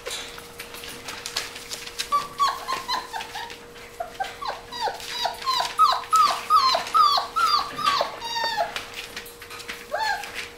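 Five-week-old Pointer puppy whining and yipping at play: a run of about a dozen short, high calls, each dropping in pitch, roughly two a second, starting about two seconds in and stopping a couple of seconds before the end. Paws patter and scrabble on the paper flooring.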